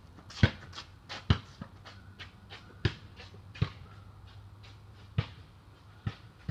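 Basketball bouncing on a hard court: about six sharp bounces at uneven intervals, with fainter knocks in between.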